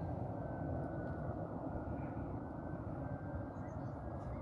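Airbus A320 jet airliner's engines: a steady rumble with a faint high whine held through it.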